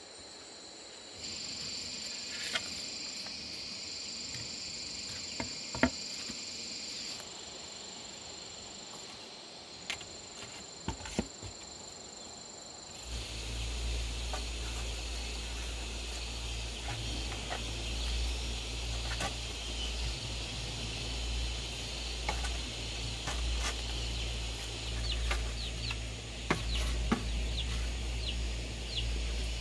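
Farmyard ambience: insects droning steadily and chickens clucking, with a few sharp knocks. About halfway through a steady low rumble sets in, and quick high chirps come near the end.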